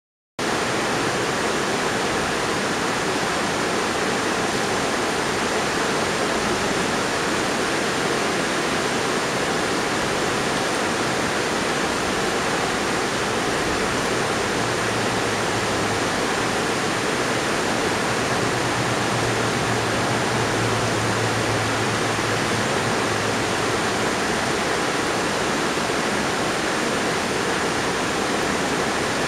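Steady rush of river water running over a rocky riffle, starting abruptly just after the opening.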